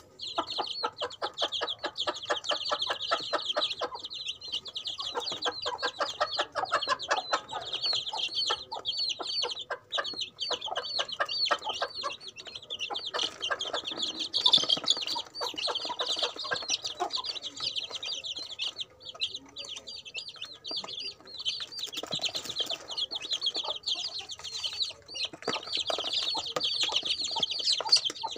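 A brood of young chicks peeping without pause, many high, short calls overlapping. Underneath are runs of rapid tapping a few seconds long, as the chicks peck at crumbled feed in a plastic tray.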